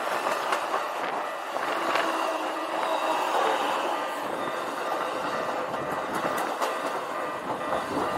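Keikyu Type 1000 electric commuter train passing at close range: the steady noise of its wheels running on the rails, with a few clicks over the track.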